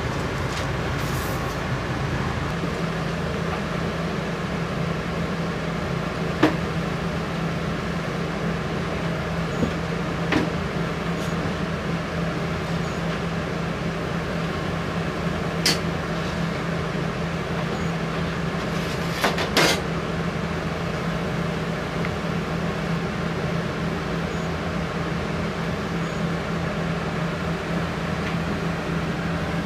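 Steady low machine hum of room equipment, with a few sharp clicks and knocks, two close together past the middle, as knives, a cutting board and foil pans are handled on a steel counter.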